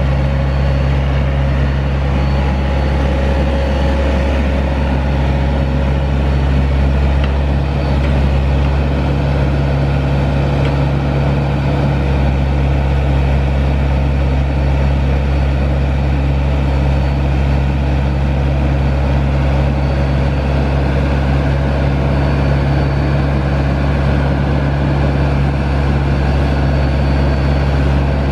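Kramer 808 wheeled excavator's Perkins diesel engine running steadily at a constant note while the hydraulic boom and stick are worked.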